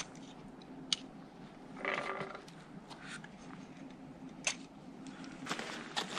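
Faint scuffing with a few sharp clicks and a brief clink: a roped climber's gear, rope and boots moving over snow and rock.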